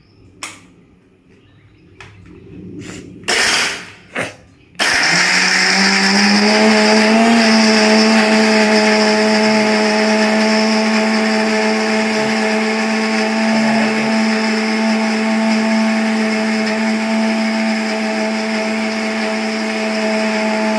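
Electric mixer grinder (mixie) grinding small onions and rock sugar into a paste. A few knocks and clatters come first, then the motor starts about five seconds in, comes up to speed over a couple of seconds and runs steadily with a loud whine.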